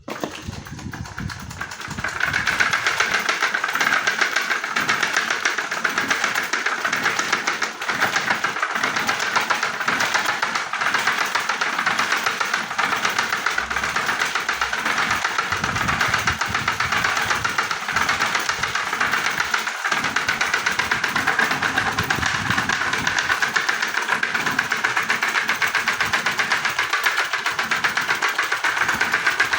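Electric fan running with a loud, fast, continuous rattle as it vibrates and shuffles itself across the surface it stands on. The rattle builds over the first couple of seconds, then holds steady.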